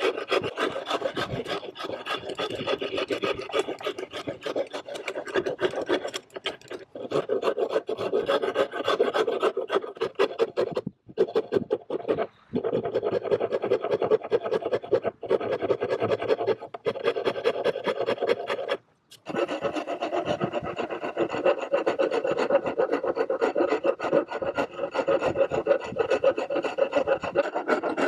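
Hand file worked in quick, continuous back-and-forth scraping strokes, broken by a few short pauses, the last about two-thirds of the way through.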